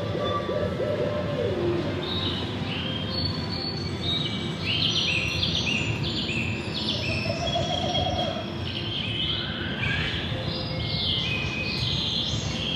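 A dense swarm of short, high, bird-like chirps from a sound-collage soundtrack played through portable amplifiers. The chirps overlap and step downward in pitch, thickening from about two seconds in, over a steady wash of street noise.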